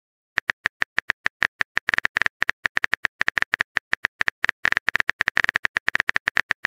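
Texting-app keyboard typing sound effect: a rapid, uneven run of short identical clicks, several a second, starting a moment in, as a chat message is typed out.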